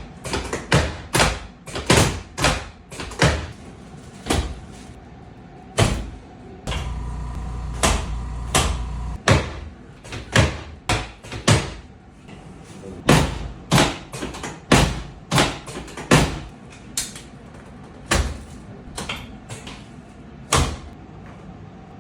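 Chiropractic adjustments on a treatment table: a long series of sharp knocks and thuds, coming in quick runs of two to four strokes about half a second apart. A low hum sounds for about two seconds a third of the way through.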